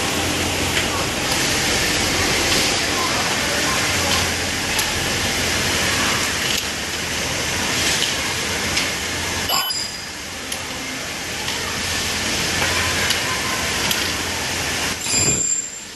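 Factory workshop noise: a steady machinery hum and hiss with occasional small clicks and clinks. It breaks off abruptly about ten seconds in, then resumes.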